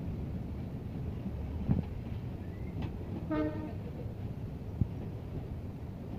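Bangladesh Railway intercity passenger coaches rolling slowly past: a steady low rumble of wheels on rail with scattered clicks. About halfway through comes a short horn-like tone.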